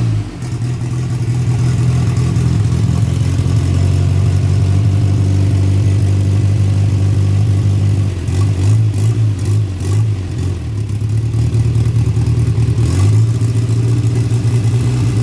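Turbocharged VW AP engine in a Voyage being revved while parked, held up high for several seconds and then blipped a few times around the 4,500 rpm cut, with the pressure-relief valve still fitted. Short hisses come as the revs drop, twice about eight to ten seconds in and once near thirteen seconds.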